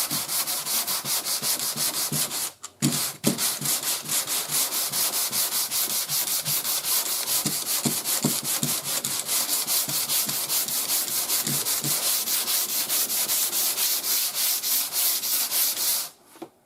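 Hand block sanding of guide-coated primer surfacer on a car quarter panel: sandpaper on a medium sanding board rubbed back and forth in quick, even strokes, several a second. There is a brief pause a few seconds in, and the sanding stops shortly before the end.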